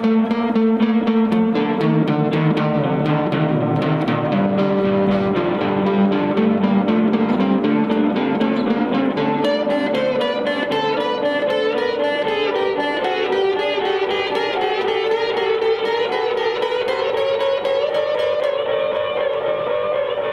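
Electric fretless guitar played with a slide through the Grand Canyon delay's tape mode, sustained, gliding notes echoing. The 8-Step Program sequencer steps the tape distortion amount, so the tone changes in steps, much brighter and more distorted from about halfway through until shortly before the end.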